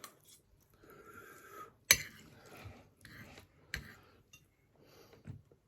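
Small tableware noises during a meal: two sharp clicks, about two seconds apart, with light rustling and breathing between them.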